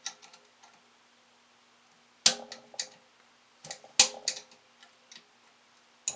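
Sharp metallic clicks and clacks of a hand tool working the clip-on wire connectors off the terminals of a water pump pressure switch. They come in short clusters about two seconds in and again around four seconds in, with a last click at the very end.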